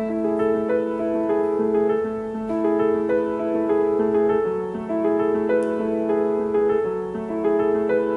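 Background piano music, a gentle melody of held notes over a steady accompaniment, with a faint click about five and a half seconds in.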